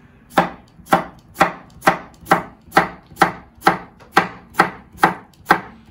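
Kitchen knife chopping on a cutting board at an even pace, about two cuts a second, slicing cucumber into long thin strips.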